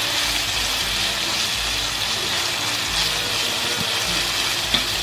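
Shredded banana blossom and sliced shallots sizzling steadily in hot oil in a wok, stirred with a spatula that gives a few light scrapes.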